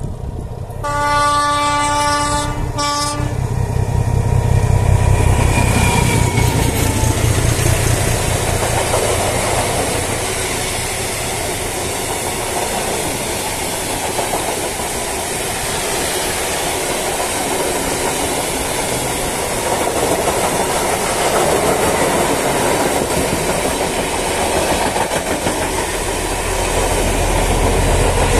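Freight train passing close by. The oncoming locomotive's horn sounds about a second in, a long blast then a short one on one tone. Then comes the steady rumble and clickety-clack of hopper wagons rolling past, and near the end a deeper engine drone as a diesel locomotive at the rear of the train goes by.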